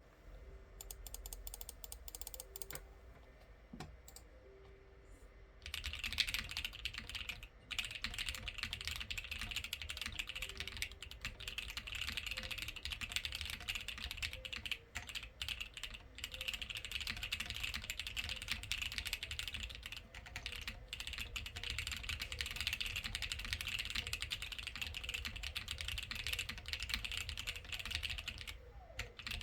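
Typing on a plateless custom mechanical keyboard with lubed Gateron Ink Black linear switches and PBT keycaps. A few separate keystrokes at first, then from about six seconds in fast, continuous typing with brief pauses. The owner finds the sound a bit hollow.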